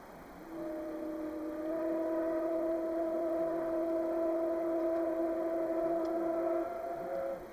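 C57 steam locomotive's whistle sounding one long, steady blast of several pitches at once, lasting about six seconds; the lowest pitch stops shortly before the rest cut off.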